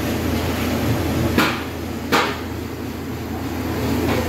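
Steady low rumble of a gas-fired stone oven's row of burners. Two sharp knocks about three-quarters of a second apart cut through it, the first about a second and a half in.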